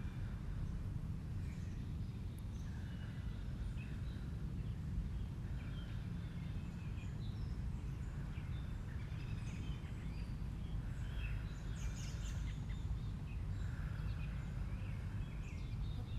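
Outdoor ambience: birds chirping and calling here and there, one call coming back several times, over a steady low rumble.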